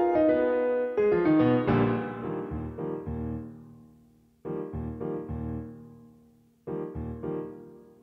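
Piano music. Chords are struck and left to ring and fade. One phrase dies away almost to silence about four seconds in, and new chords come in soon after and again near seven seconds.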